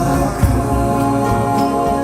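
Music: a devotional chant song, its notes held long over a pulsing bass, with no words heard.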